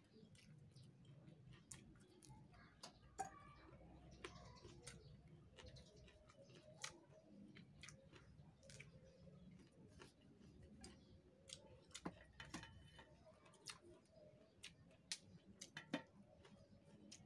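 Quiet mouth and hand sounds of eating by hand: scattered soft clicks and smacks of chewing, with fingers picking through rice and tearing raw papaya leaves over a metal tray.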